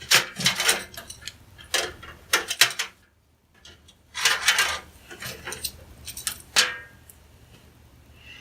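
Thin sheet-steel panels of a budget micro-ATX computer case being handled, rattling and clanking in clusters of knocks, with a short break about three seconds in.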